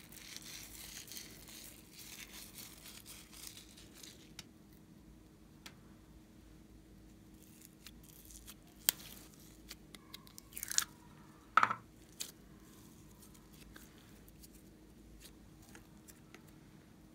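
Slime squeezed out of a cut balloon, a soft crackly hiss for the first few seconds, then quiet handling of slime and a plastic slime tub with scattered small clicks and a few sharp taps about halfway through.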